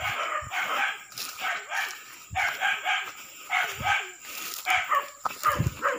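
Dogs barking in short bursts, about once a second, with low thumps of footsteps underneath.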